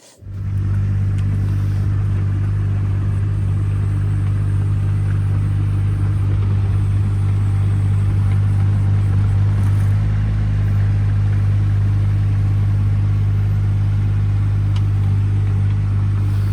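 Engine of a tracked machine running steadily with a low, even hum. It comes in suddenly at the start and holds unchanged, while the machine is driven over fresh ground to pack it down.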